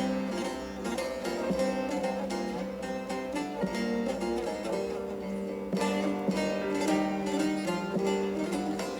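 Background music led by a plucked string instrument, guitar-like, playing a steady run of notes.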